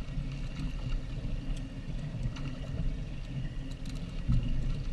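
Wind buffeting the microphone in a low, uneven rumble, with water lapping and sloshing against a small boat's hull.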